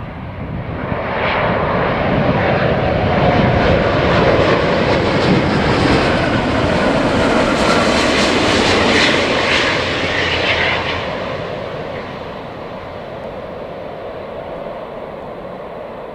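Airbus A350-1000's twin Rolls-Royce Trent XWB turbofans at approach power as the airliner passes low overhead on landing approach. The jet roar builds over the first few seconds, is loudest and hissiest around the middle as the aircraft goes by, then fades steadily away.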